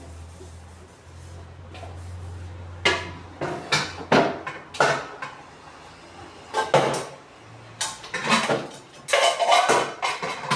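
Kitchen clatter: dishes, containers and cupboard or fridge doors being handled, a run of separate knocks and clinks that comes thick from about three seconds in, over a low hum at the start.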